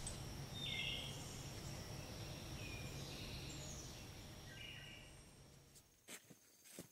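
Faint outdoor ambience: a few short bird chirps over a steady high thin whine, fading out about five seconds in. A couple of faint clicks near the end.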